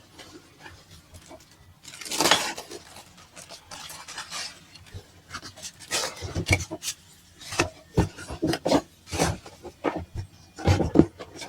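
A cardboard box and its packaging being opened and handled: irregular scraping and rubbing with knocks and clicks, the longest scrape about two seconds in.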